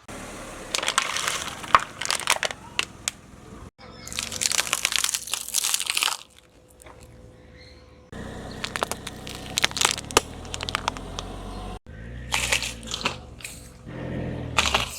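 Crunchy objects being crushed under a car tyre: dense crackling, snapping and crumpling over a low rumble. It comes in several short takes that break off abruptly.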